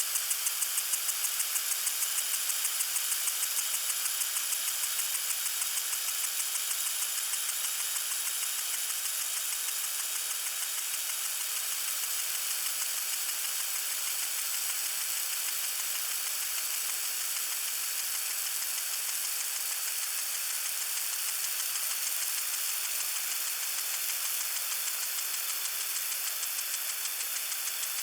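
Lawn sprinkler spraying water: a steady high hiss of spray with a fast, even ticking, clearest in the first few seconds.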